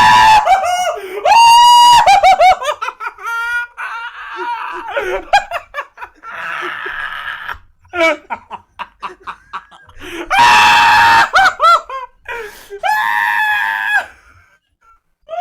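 A person's high-pitched, maniacal Joker-style laugh: long shrieking cries alternating with rapid runs of cackling, and a brief pause near the end.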